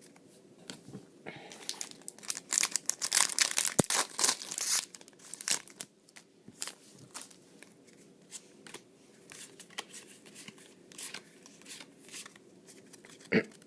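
Foil Pokémon booster pack wrapper being torn open and crinkled: a dense run of tearing and crackling about two seconds in, then scattered lighter crinkles.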